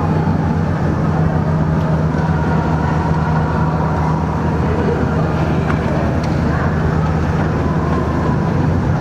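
Long metro escalator running with a steady low hum.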